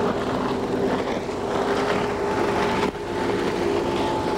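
Motorised surfboard's small engine running at a steady pitch as it skims over the water, with the hiss of spray beneath, and a brief drop in level about three seconds in.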